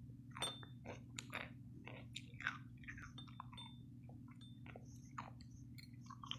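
Close-up chewing of green olives and pickled jalapeño slices: an irregular run of wet, crunchy bites, with a few light clinks of a metal fork against the ceramic bowl.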